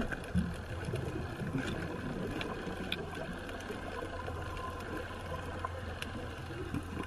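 Underwater ambient noise picked up by a submerged camera: a steady low hum with a few scattered sharp clicks.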